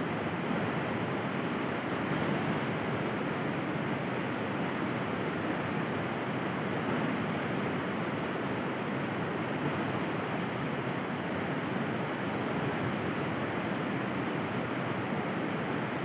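River water flowing, a steady, even rushing without breaks.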